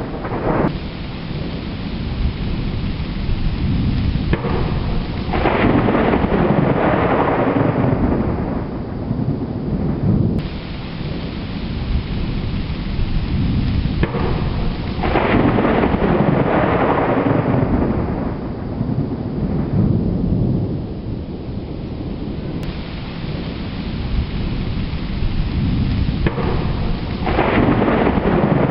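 Thunderstorm: steady rain with three long rolls of thunder that build and fade away, about ten seconds apart.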